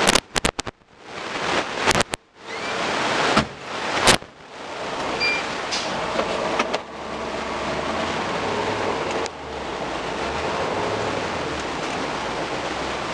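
Steady machinery noise heard inside a tractor cab, from the tractor and a Claas Lexion combine harvester working alongside. A few sharp clicks and brief dropouts break it in the first four seconds.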